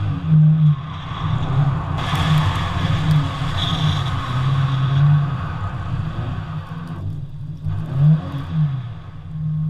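Toyota 86's supercharged flat-four engine revving hard and falling back, again and again, as the car is thrown through a tight course, with tyre noise from a slide for a few seconds. The revs drop briefly about seven seconds in, then climb again.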